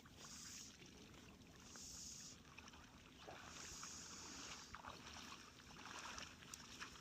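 Faint lake water lapping at the shore, with soft washing swells every second or two and a few small ticks.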